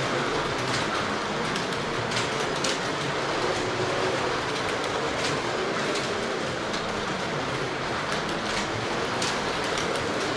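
Carrera Digital 1/32 slot cars running laps on plastic track: electric motors whining, the pitch wavering up and down as the cars speed up and slow, over a steady rumble of the cars on the track, with scattered sharp clicks.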